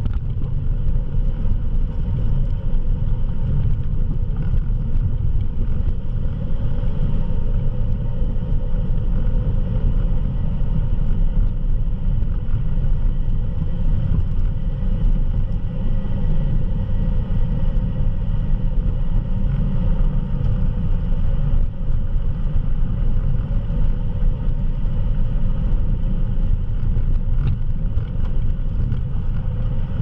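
2019 Jeep Wrangler JL driving, a steady low rumble of engine and tyres with no change in pace.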